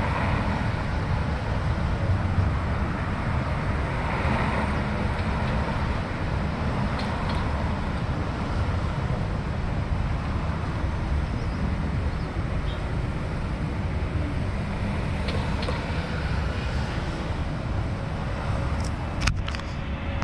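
Steady rush of wind and road noise from riding a bicycle, with a few sharp clicks near the end.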